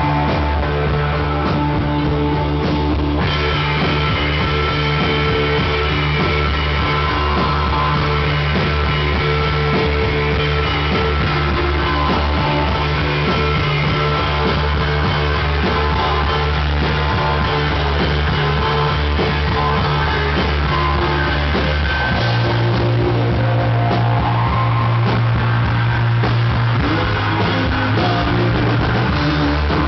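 Rock band playing loud live, with electric guitar and bass guitar. The bass line shifts to a different note pattern about two-thirds of the way through.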